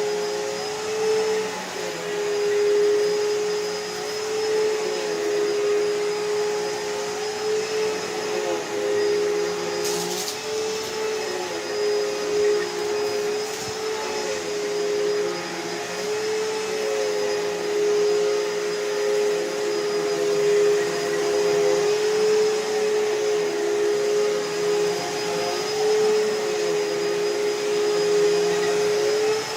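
Hoover Elite Rewind upright vacuum cleaner running steadily with a strong motor hum, fitted with a new belt. Its level swells and dips every second or two, with a brief click about ten seconds in.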